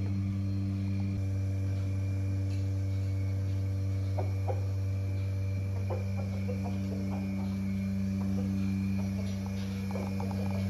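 A steady low electric hum from running machinery, with a few faint short clicks and knocks through the middle.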